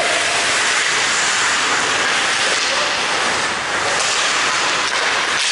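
Steady, loud hiss of ice hockey rink noise during play: skates on the ice and the hall's background noise, with a faint brief call about halfway through.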